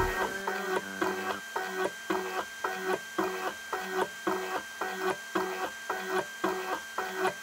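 Arduino-driven wire-bending test machine, its motor swinging a lever arm back and forth to bend 1 mm wire over and over for a fatigue test. It makes a steady rhythm of short, even mechanical strokes over a constant motor hum.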